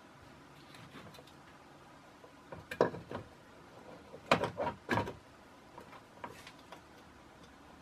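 Metal tools clinking against a brass ball valve as an adjustable spanner is fitted onto it while water-pump pliers grip its body. One knock comes a little before three seconds in, then a quick cluster of three or four clinks between about four and five seconds.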